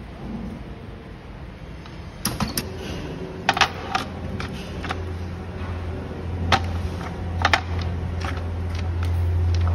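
Light clicks and clacks of cylindrical lithium-ion cells knocking together as they are pressed into a row on a work board, scattered and irregular. A steady low hum comes in about halfway and grows louder toward the end.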